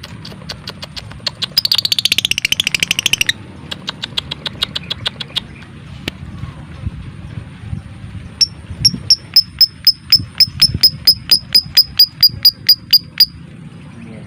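Lovebird calling: a fast rattling burst of clicking chatter, then a regular string of about twenty sharp, high chirps, about four a second, in the second half.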